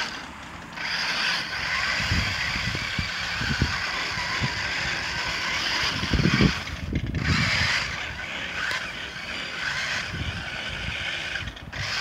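Toy remote-control monster truck's electric motor and gearbox whirring steadily as it drives. The whir cuts out briefly about seven seconds in and again near the end, with low thumps underneath.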